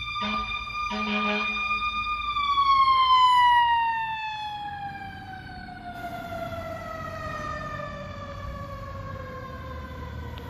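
Fire ladder truck's mechanical siren held at a steady high pitch, then winding slowly down over several seconds as the truck goes past, loudest a few seconds in. Two short air horn blasts sound in the first couple of seconds.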